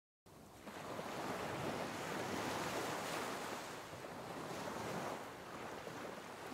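Small waves washing onto a sandy beach, a steady rushing hiss that swells and ebbs a little, with some wind. It fades in from silence just after the start.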